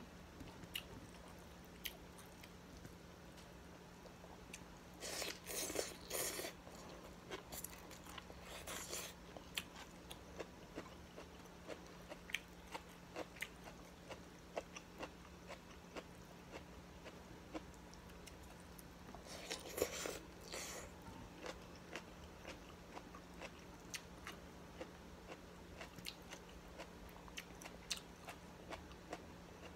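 Eating noises close to the microphone: chewing and many small mouth and finger clicks as rice noodles with shrimp are picked up by hand and eaten, with a few louder crunchy bursts, about five, eight and twenty seconds in.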